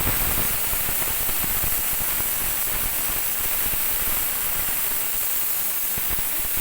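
Gram flour roasted in hot ghee sizzling and hissing loudly with a fine, dense crackle, as water hits the hot pan and steams.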